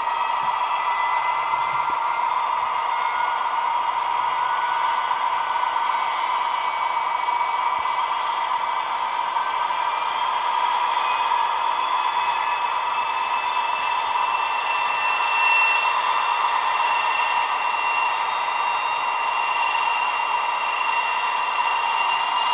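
Sound file of a DB class 218 diesel locomotive with an MTU TB11 engine, in 8-bit 22 kHz quality, played through the small built-in speaker of a Roco H0 model locomotive. The engine runs steadily, its pitch slowly rising in the second half as it is notched up.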